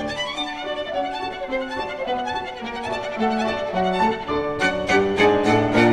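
Instrumental background music: a melody of changing notes over a steady accompaniment, growing fuller and brighter about four and a half seconds in.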